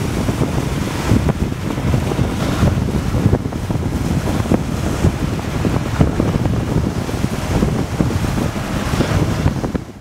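Strong gusting wind buffeting the microphone, with the rush of choppy lake waves breaking on the shore.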